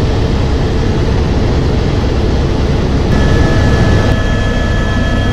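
Helicopter cabin noise: the rotor and engine running steadily, a low drone with a steady high whine over it.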